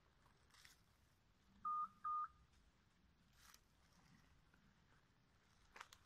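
Two short electronic beeps of the same pitch, about half a second apart, a couple of seconds in. Faint crackles of movement in dry leaf litter come and go around them.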